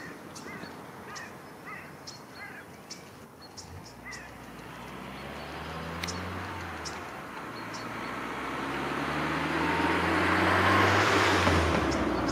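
Eurasian beaver gnawing bark off a stick, with small crisp clicks of its teeth and a few short bird chirps in the first seconds. From about four seconds in, a passing vehicle's low drone builds into a loud rush that peaks near the end.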